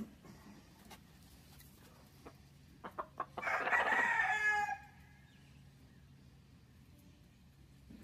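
A rooster crows once, about three and a half seconds in: a single loud call about a second and a half long that falls away at the end. A few sharp clicks come just before it.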